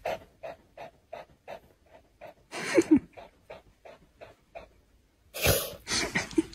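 Small dog panting quickly, about three short breaths a second. It gives one louder breath with a short falling squeak midway, and there is a louder noisy burst near the end.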